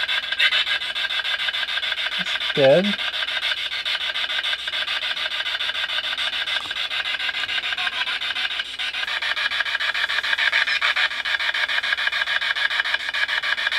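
Handheld spirit box sweeping radio stations: a continuous, rapid raspy chatter of static, loud and steady, used to seek spirit voices.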